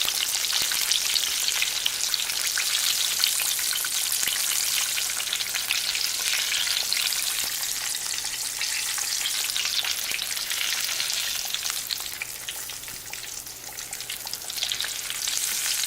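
Breaded green tomato slices frying in hot oil in a pan: a steady, crackling sizzle, a little softer near the end.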